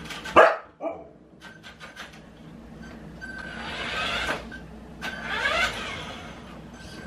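A Siberian husky gives one sharp bark about half a second in, then a smaller one. After that, a battery-powered remote-control toy car's motor whines twice as it drives back and forth, its pitch rising and falling.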